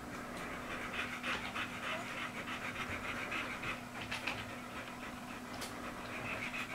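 American Bully dogs panting with open mouths, a quick, even run of breaths.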